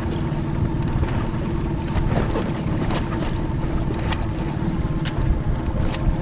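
A boat's outboard motor running steadily while trolling, with wind and small waves slapping against the hull in short sharp knocks.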